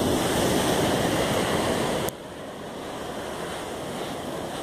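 Surf washing up a sandy beach, a steady rushing noise mixed with wind on the microphone; the noise drops suddenly about two seconds in.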